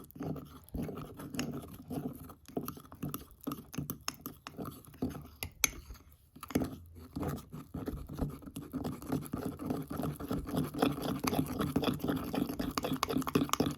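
A utensil stirring thick chocolate mug-cake batter in a mug: rapid clicking and scraping against the mug's sides, with a brief pause about six seconds in.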